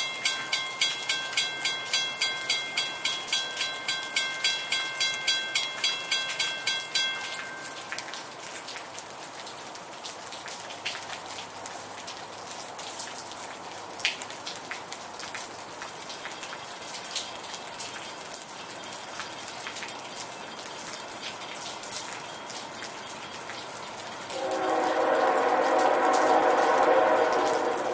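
Steady rain, with a rapid dinging of about three strikes a second that stops about seven seconds in. Near the end an approaching train's locomotive horn sounds one long blast of about three seconds, the loudest sound.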